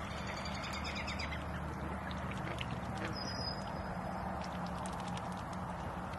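Steady outdoor background noise with a low hum, and a few faint, high bird chirps near the start and again about three seconds in.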